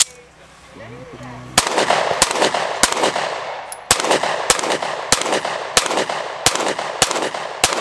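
9mm pistol shots: one shot at the start, then after a short pause a string of about ten more, roughly one every half-second to second, each a sharp crack with a brief echo.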